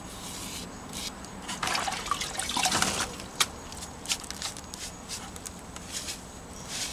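Damp sponge rubbed over fresh mortar joints and stone faces to wipe off excess mortar. Two stronger wet rubbing strokes about two seconds in, then lighter rubbing with a few small clicks.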